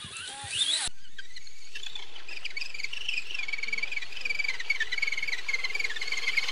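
Electric motor of an RC truck whining, a high tone that wavers in pitch with the throttle, starting about a second in at a cut. Near the end the pitch drops and a rougher low rumble comes in, as the truck takes load.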